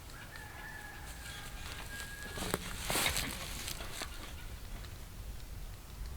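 A domestic fowl calling in the background, one long drawn-out call, followed by a few light knocks.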